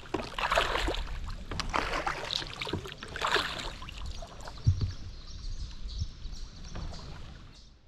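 Paddle strokes swishing and splashing through river water about once a second, easing off in the second half, with a single low knock against the boat about halfway through.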